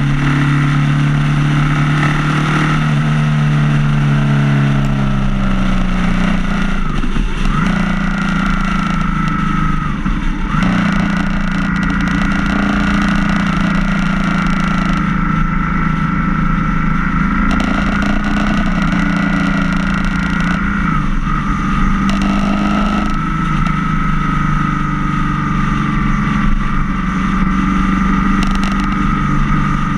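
Motorcycle engine running at cruising speed, heard from on the moving bike with wind rush. Its pitch dips briefly and climbs back a couple of times, about a third of the way in.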